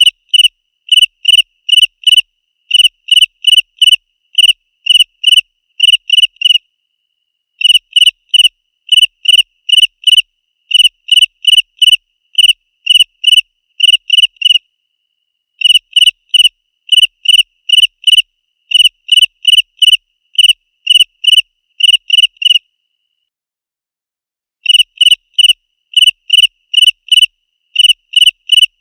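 A cricket chirping loudly and shrilly: short pulsed chirps, about two a second, in runs of several seconds broken by short pauses, one of them about two seconds long in the second half.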